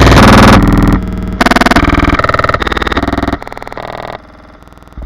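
Electronic music: a distorted synthesizer playing loud chords that change about every half second, dropping in level after about three and a half seconds.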